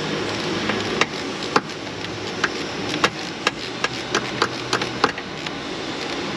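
A series of sharp, irregular metallic clicks, roughly one to three a second, from a ratcheting hand tool as the ignition coil hold-down screws are run down and torqued. A steady shop fan hums underneath.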